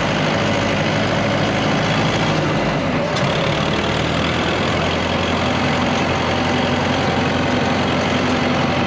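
Landini tractor's diesel engine running steadily under way, heard from the driver's seat.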